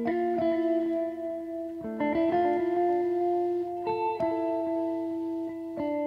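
Background music played on guitar: slow, ringing picked notes that shift to a new chord every second or two.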